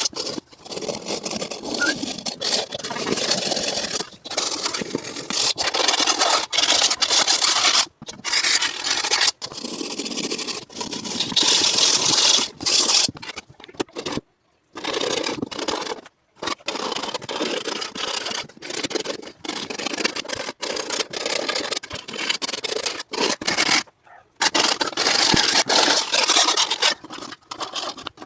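Homemade hacksaw-blade ring scraping burnt-on crust off a metal frying pan: harsh, continuous metal-on-metal scraping in long stretches, cut off abruptly several times.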